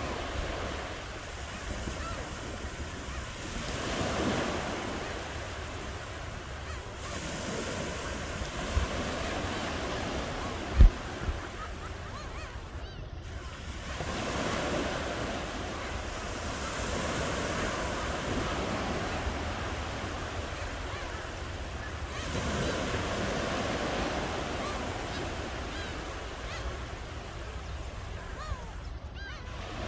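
Ocean waves washing in, swelling and ebbing every few seconds, over a steady low wind rumble on the microphone. There is one sudden low thump about eleven seconds in.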